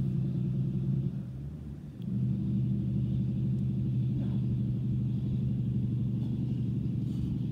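Steady low rumble that dips briefly about a second in, then carries on unchanged.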